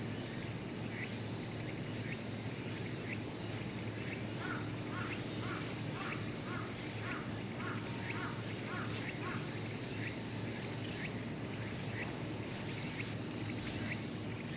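Birds calling over a steady outdoor background: short high chirps about once a second throughout, and in the middle a run of about ten short calls, about two a second.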